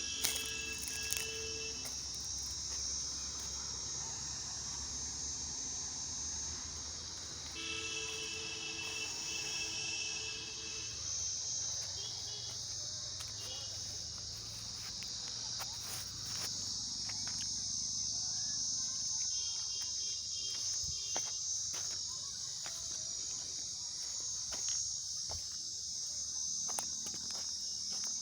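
Steady high-pitched insect chorus, with scattered faint clicks. Twice, a brief pitched sound with several tones joins in, near the start and again about eight seconds in.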